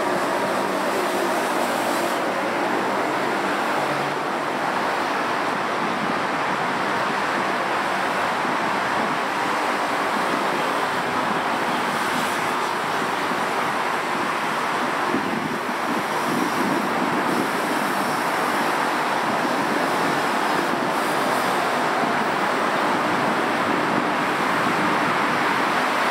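Steady traffic noise from a busy multi-lane road: a continuous wash of passing cars and engines.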